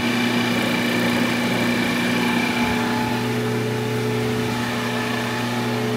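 VEVOR 3/4 HP refrigerant recovery machine running with a steady motor and compressor hum, set to purge while it holds the car's A/C lines at −1 bar of vacuum. A faint high whine drops out about halfway.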